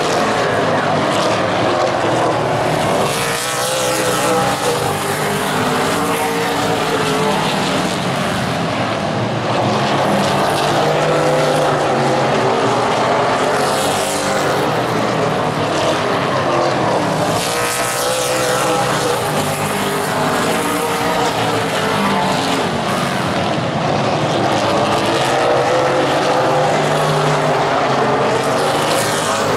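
A pack of super late model stock cars racing on a short oval, their V8 engines running continuously with the pitch rising and falling as the field circles. Several cars sweep past close by, their engine note swooping down as each goes by.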